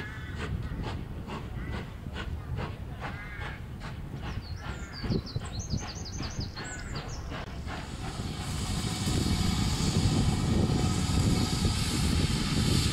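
Birds call over and over, about two calls a second, with a short burst of small-bird chirping in the middle. From about eight seconds in, a steam locomotive's steady hiss and low rumble rise and take over, louder than the birds.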